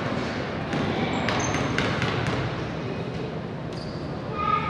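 Basketball bouncing on a hardwood gym floor, several bounces in the first half, against steady gym background noise.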